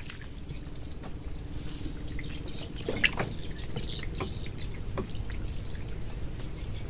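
Insects chirping in a quick pulsing rhythm from about five seconds in, over a steady high-pitched whine. A few sharp knocks from a freshly caught fish being handled and unhooked in the boat, the loudest about three seconds in.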